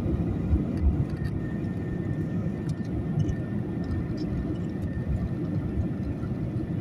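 Passenger airliner during takeoff: a steady low rumble of engines and airflow, with a faint high whine through the middle.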